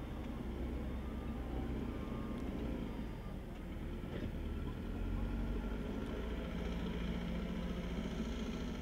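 Diesel engine of earthmoving machinery, a wheel loader working beside a dump truck, running steadily as a low hum that grows a little stronger near the end.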